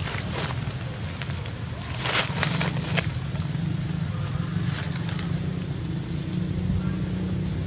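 Steady low wind rumble on the microphone outdoors, with a few short crackles near the start, around two seconds in and at three seconds.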